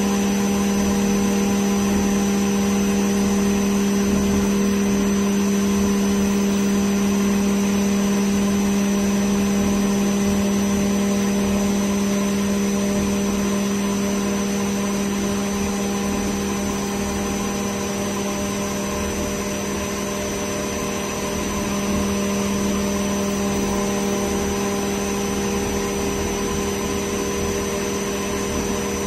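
MultiCam 5000-series CNC router spindle running steadily, its 1/2-inch spiral O-flute bit milling 3/4-inch aluminum plate. It makes a steady pitched hum over constant machine noise, easing slightly for a few seconds past the middle.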